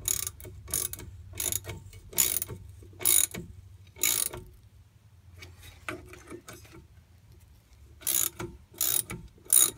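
Hand socket ratchet clicking in repeated short strokes as bolts are worked on behind a drum brake backing plate. There are six strokes, a pause of a few seconds, then four more near the end.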